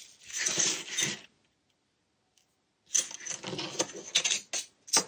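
Steel ruler and vernier calipers being slid across and set down on a cutting mat: scraping with light metallic clicks, in two spells with a pause of about a second and a half between them.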